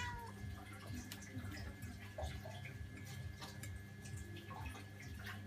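The tail of a cat's meow right at the start, then faint, scattered light ticks and clicks over a steady low hum.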